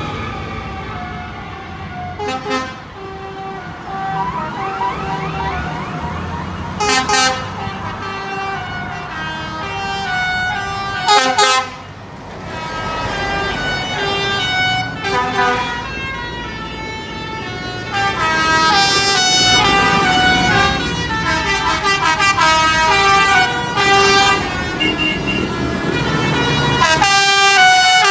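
A convoy of tractors and other vehicles driving past with engines running, horns tooting again and again, and held horn notes at several different pitches.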